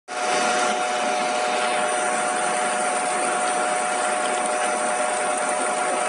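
A machine running steadily with a constant whine, over an even rushing hiss.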